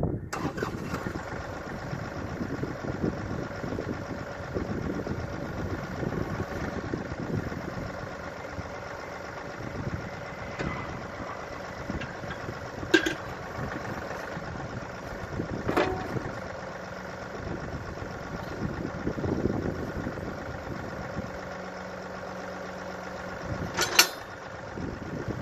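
John Deere 2038R compact tractor's three-cylinder diesel engine running steadily, with three sharp knocks at intervals, the loudest near the end, as the 270B backhoe is coupled back on.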